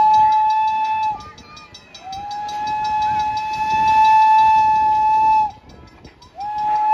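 Train whistle of the Thomas the Tank Engine locomotive and its coaches, sounded in three blasts: one ending about a second in, a long blast of about three and a half seconds, and a short one starting near the end. Each blast slides up briefly, then holds one steady pitch.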